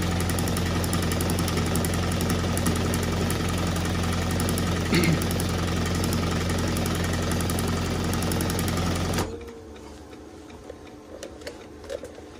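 Singer 114e103 chain stitch embroidery machine running at speed on its table motor: a steady low hum under a fast, fine mechanical clatter. It stops abruptly about nine seconds in, leaving only faint clicks.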